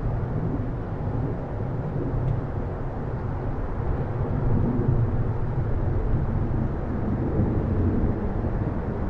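Distant city ambience heard from a residential area: a steady low rumble of far-off traffic that swells slightly in the middle.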